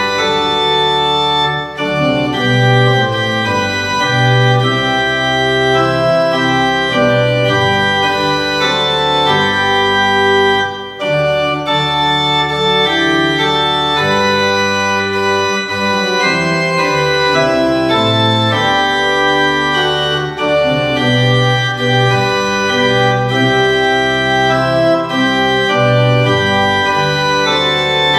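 Organ music: slow held chords, with the bass and chord notes changing every second or two.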